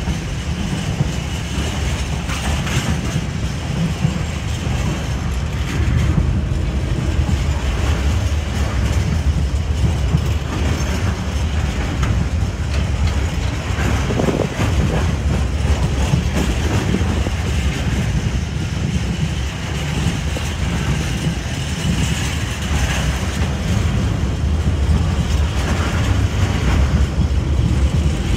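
Intermodal container freight wagons rolling past steadily: a continuous low rumble of wheels on rails, with scattered short knocks as the wagons pass.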